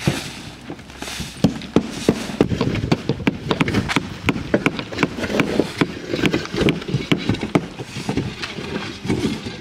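Old asphalt shingles being torn off a roof: tear-off shovels and bars scrape and pry at the roof deck, with many irregular sharp knocks and clatter of tools and shingle debris.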